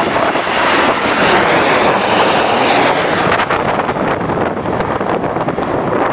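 A landing airliner's engines roar as it passes close by, swelling to a peak about two seconds in and then easing off, with strong wind buffeting the microphone.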